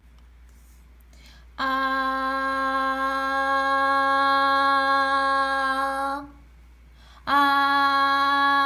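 A voice humming one long steady note at the same pitch twice, each about four to five seconds, with a short pause between.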